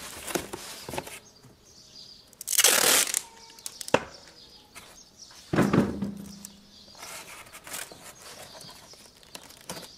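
Cardboard and tape being worked by hand into a simple ramp: two loud ripping sounds, about two and a half and five and a half seconds in, with a sharp click between them and scattered taps and crinkles.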